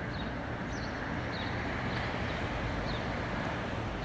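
Steady outdoor street ambience: a low hum of distant traffic, with faint short high chirps every second or so.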